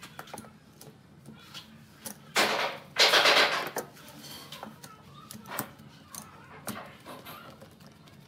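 Steel bar clamps being fitted onto a wooden glue-up: two loud metal scrapes a little over two seconds in, as a clamp jaw is slid along its bar, then a few light clicks and knocks of clamp hardware against wood.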